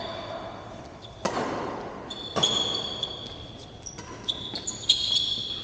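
Players' sneakers squeaking on a hard indoor court floor during a badminton rally. Two sharp racket strikes on the shuttlecock come about a second and two and a half seconds in, with the hall's echo after them.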